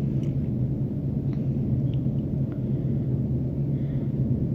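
A steady low hum is the loudest sound throughout. Over it come a few faint, light clicks as wet soaked dal is dropped by hand into an aluminium pressure cooker.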